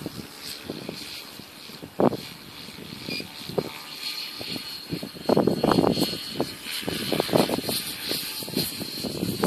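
Distant aircraft engine droning overhead as a faint, steady, high whine. Irregular rumbling bursts lie over it, about two seconds in and again through the second half.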